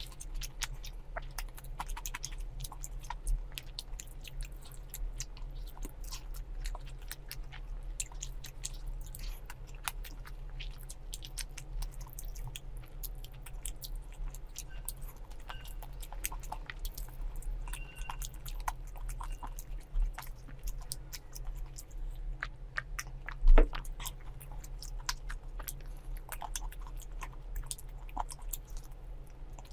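Close-miked chewing and biting of food, with many small mouth clicks and smacks, over a steady low hum. There is one louder knock about three quarters of the way through.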